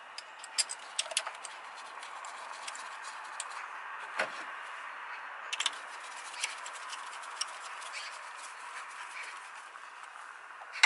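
Scattered light metallic clicks as a socket wrench on a long extension turns the ignition coil's hold-down bolt, with one duller knock about four seconds in, over a steady background hiss.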